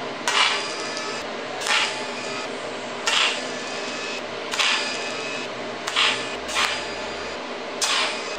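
TIG welding arc on a stainless steel armature: a steady buzz under loud hissing surges that come about every one and a half seconds as the welder works along the joint.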